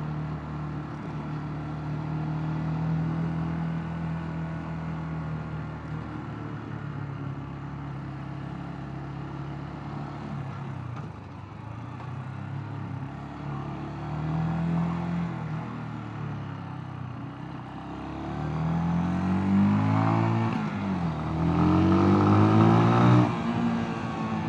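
Mash Two Fifty 250 cc single-cylinder motorcycle engine under way, running steadily at cruising revs. Near the end the rider opens the throttle: revs climb, dip briefly with a gear change, climb again, then fall away as the throttle shuts.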